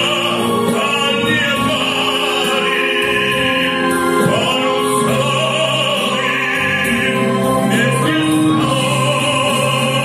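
A man singing into a handheld microphone, amplified through a PA speaker, holding long notes with vibrato.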